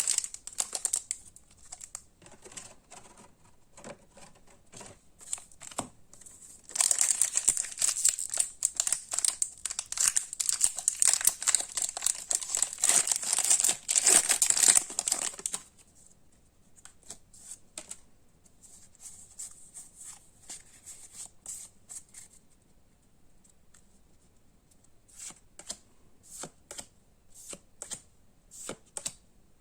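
Pokémon trading-card packaging crinkled and torn open in a dense burst lasting about eight seconds, with lighter clicks and flicks of the cards being handled before and after.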